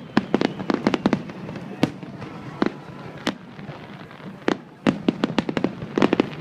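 Fireworks bursting overhead: a rapid, irregular string of sharp cracks and pops, with a dense cluster of them about six seconds in.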